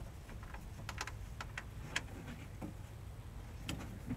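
Scattered light clicks and taps, a few a second, from hands handling plastic wiring parts on an electric radiator fan shroud, over a low steady rumble.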